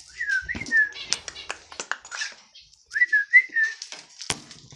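Pet bird whistling two short phrases of gliding notes, about three seconds apart, among quick high chirps and clicks.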